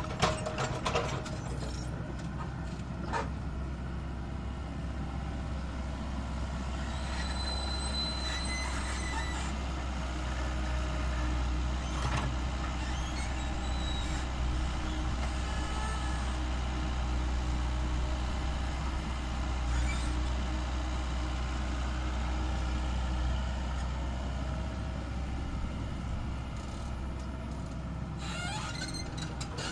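Heavy diesel engine running steadily with a deep rumble, with a few brief high squeals about seven to nine seconds in.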